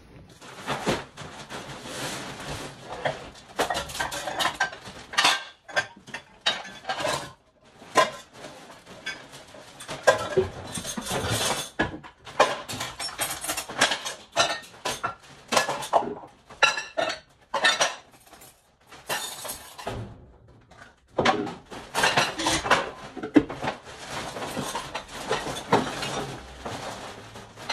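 Household junk being handled and tossed during a house clean-out: hard objects, dishes and glass clattering and clinking together in a dense, irregular string of knocks, with a few short pauses.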